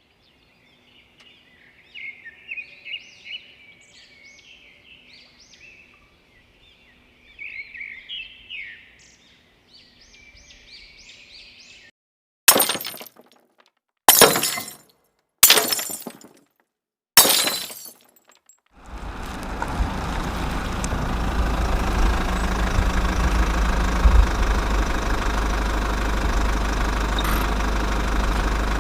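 A run of sound effects: small birds chirping and twittering for about twelve seconds, then four sharp crashes of breaking glass about a second and a half apart, each ringing out. From about nineteen seconds in, a steady engine-like rumble takes over with a strong low end.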